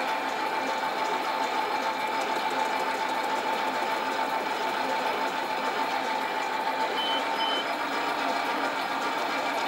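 Sieg lathe running steadily with a constant whine as its chuck spins, a tool taking a light facing cut on the end of a brass bearing block.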